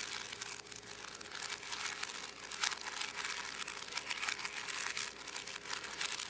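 Rubik's Cube being twisted rapidly: a dense run of quick plastic clicks and rattles as the layers are turned during a speed solve.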